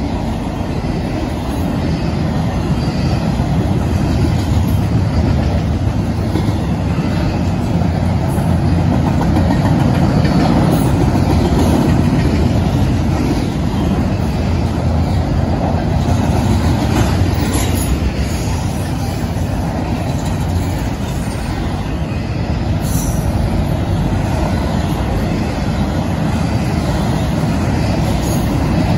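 Canadian Pacific double-stack container train rolling past close by: a steady rumble of the well cars' wheels on the rails.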